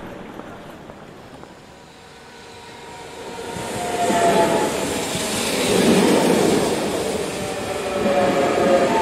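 A train passing, swelling from about three and a half seconds in to a loud steady rush of wheel and track noise, with brief squealing tones above it twice.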